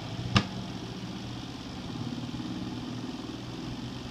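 A single sharp click, then the spin-dryer motor of a portable twin-tub washer running with a steady hum, growing a little louder about two seconds in as the drum spins up.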